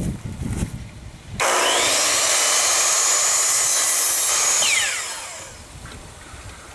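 Electric power saw cutting a piece of wooden trim. It starts suddenly about a second and a half in, runs loud and even for about three seconds, then winds down with a falling whine as the blade spins down.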